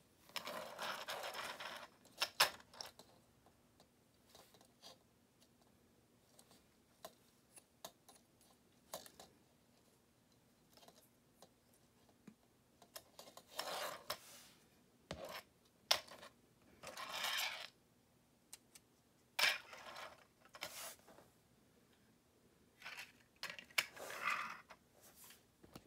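Handling noise from small 1:72 plastic model KrAZ 6322 trucks and their trailer: scattered sharp plastic clicks and several brief rustling scrapes as the pieces are turned over in the hands and set down on a wooden floor.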